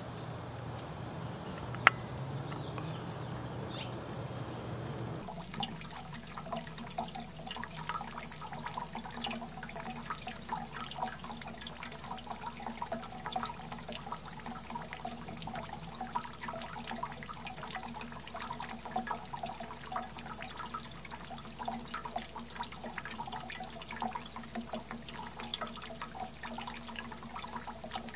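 Water from a small fountain's thin jets pattering and dripping into a shallow basin, a dense run of small drop sounds over a steady low hum. The patter starts suddenly about five seconds in, after a low rumble and a single sharp click.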